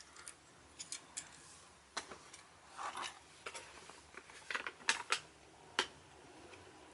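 Plastic Transformers Ratchet action figure being handled, its parts flipped and moved with scattered light clicks and rubbing, a few clicks close together around five seconds in.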